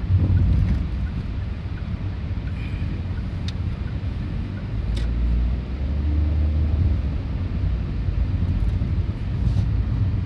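Low, steady rumble of a vehicle, swelling a little past the middle, with a few faint clicks.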